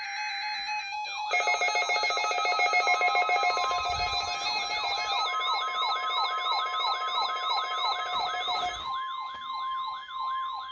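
Several NOAA weather radio receivers sounding their alerts at once: overlapping siren-like sweeps falling in pitch about three times a second, a rapid buzz and steady beeping, over the broadcast's long steady warning alarm tone. The alarms start about a second in; most stop near the end while one siren keeps sweeping.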